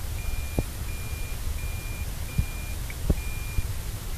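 Toyota Prius's in-cabin reverse warning beeper sounding its constant pattern: five even, high-pitched beeps about a second apart, the sign that the car is in reverse with the continuous reverse beep switched on.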